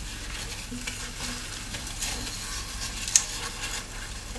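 Dry rustling and scraping of cardboard egg-crate trays being handled and rubbed against a plastic tub, with faint scattered ticks and one sharp tap about three seconds in.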